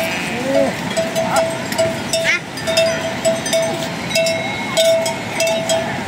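Livestock bells clinking and ringing, with one bell giving a short ringing note about three times a second over many lighter clinks from other bells.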